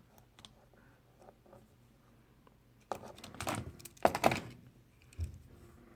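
Handling noise as pocket knives are put down and picked up on a table: a few faint clicks, then two short rattling, scraping bursts about three and four seconds in, and a dull thump near the end.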